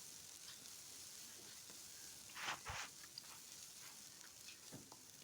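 Faint sizzling of chopped onion, ginger and garlic frying in oil in a kadai, with a short burst of spoon scraping against the pan about two and a half seconds in.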